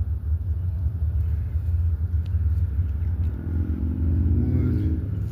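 A steady low rumble, a little louder in the second half.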